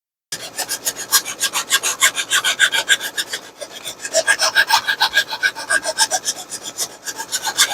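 Hand file rasping back and forth on the GoTek's plastic case in quick, even strokes, about five a second, starting abruptly just after the start.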